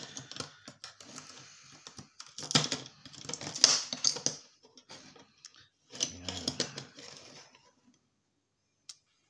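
A DVD player's front-panel digital display being ripped open by hand: bursts of rapid clicking, crackling and scraping, the loudest about three to four seconds in and another around six seconds, stopping near the end.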